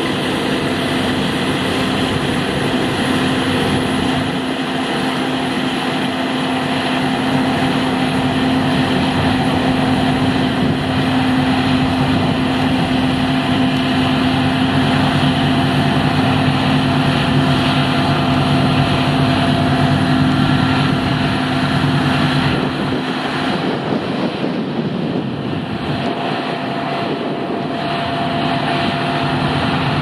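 Claas Lexion 670 combine harvester working at close range: engine and threshing machinery running in a steady drone while it cuts barley and unloads grain from its auger into a tipper trailer, with the lorry alongside also running. The sound thins and changes tone for a few seconds about three-quarters through.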